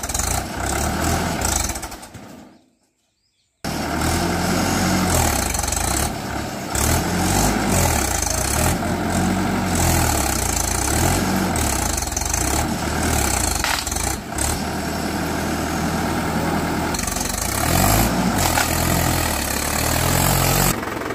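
Swaraj tractor's diesel engine running hard and revving up and down as the tractor, on cage wheels, struggles to climb out of deep mud. The sound drops out to silence for about a second near the start, then the engine runs on loudly to the end.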